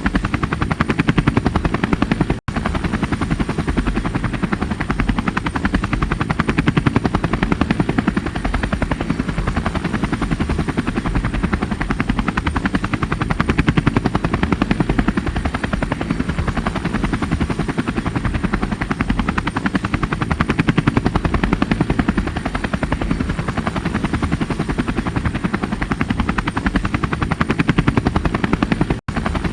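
Helicopter running steadily, its rotor blades making a rapid, even beat over the engine noise. The sound drops out for a split second about two seconds in and again near the end.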